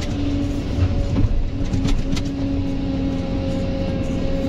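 Kobelco SK excavator's diesel engine and hydraulics running under load, heard from inside the cab as the bucket digs into the soil: a steady low rumble with a constant hum, and a few sharp clicks about two seconds in.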